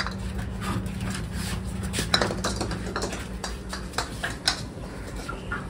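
Scattered light taps and clicks of a pug scrambling after a tennis ball on a concrete floor, with a low steady hum in the first second.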